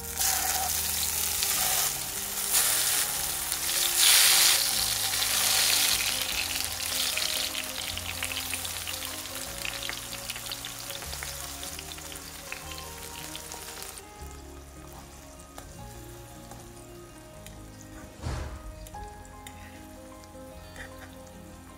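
Tomato slices sizzling as they go into hot olive oil in a non-stick frying pan. The sizzle starts suddenly and is loudest over the first few seconds as slices are added, then settles to a softer frying. A short knock comes near the end.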